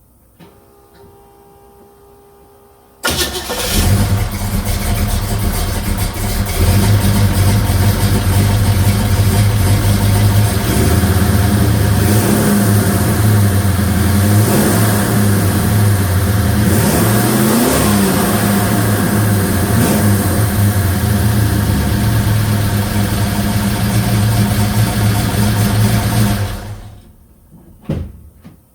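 Chevrolet 307 small-block V8 catching about three seconds in, then running loud and steady with a brief rev partway through, and shutting off a couple of seconds before the end. A short thump follows near the end.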